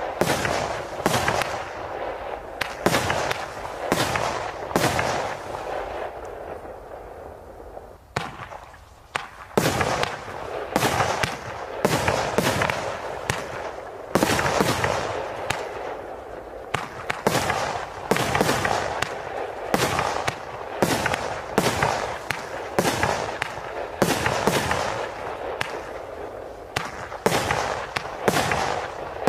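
Zeus Profi Box 1.3G consumer firework barrages firing their 19 shots, a steady run of sharp launch and burst reports about one or two a second, with a lull about six to eight seconds in before the shots pick up again.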